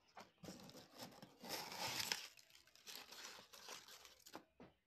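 Cardboard shipping box being opened by hand: the flaps are folded back and the white packing material inside rustles and crinkles, loudest about two seconds in.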